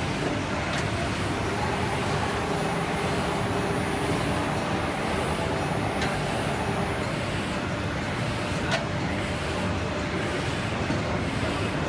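Steady mechanical running noise from an automatic paper unloader moving a cut stack of paper onto a pallet, with a faint hum and a few light clicks.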